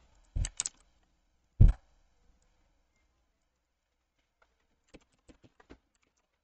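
Computer mouse and keyboard clicks: a few sharp clicks in the first two seconds, then a quick run of about five lighter clicks near the end.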